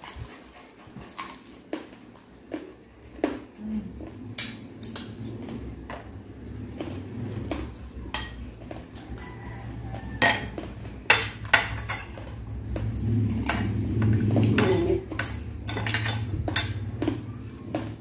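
Knife and fork clinking and scraping on a plate and cutting board as crispy fried pork knuckle is cut apart, in scattered sharp clicks that come thicker in the second half, over a low steady hum.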